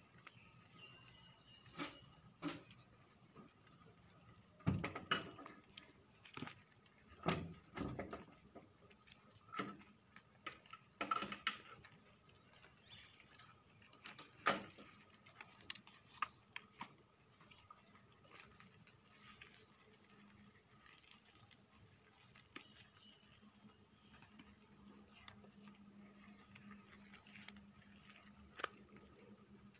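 Rabbits feeding at a plastic crate of greens: scattered rustling of leaves and light knocks and scrapes against the crate, most of them in the first half, then quieter.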